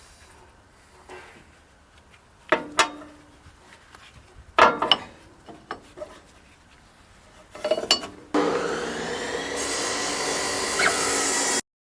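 Metal gearbox parts of a manure spreader's ratchet feed knocking and clinking a few times as the feed pawl is fitted, followed by a steady rasping noise of about three seconds that cuts off suddenly.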